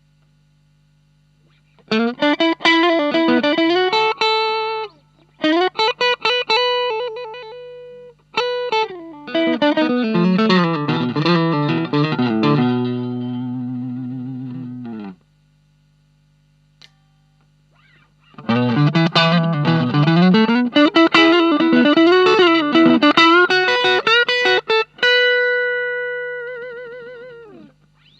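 Fender Stratocaster electric guitar played through an Ibanez Tube Screamer Mini overdrive pedal into a Marshall MG15 practice amp. It plays several phrases of overdriven lead licks, and one chord rings out and fades over a couple of seconds. After a pause of about three seconds come more licks, ending on a long held note with vibrato. A low hum sits under the pauses.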